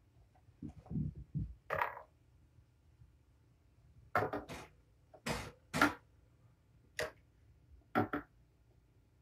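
Kittens playing on a carpeted floor: a few soft thumps about a second in, then a run of short, scratchy scuffles and rustles.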